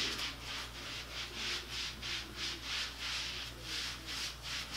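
Self-tanning mitt rubbing gradual tanning lotion into the skin of a leg: quick, even back-and-forth swishing strokes, about four a second.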